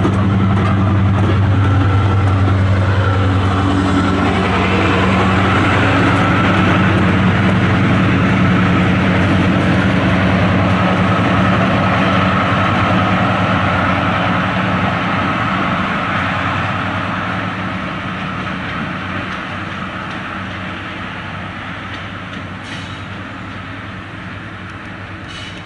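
Diesel locomotive running with a deep, steady engine note as the train passes, fading gradually over the second half as it draws away.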